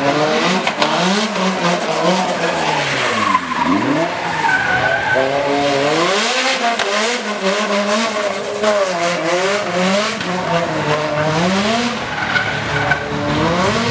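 Toyota GT86 drift car sliding sideways, its engine revving up and down again and again while the tyres squeal and spin.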